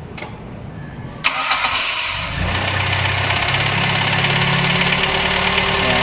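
Toyota Corolla's 2E four-cylinder engine being started: the starter cranks for about a second, the engine catches, and it settles into a steady high fast idle, held up by the carburetor's auto choke and its freshly tightened fast idle screw.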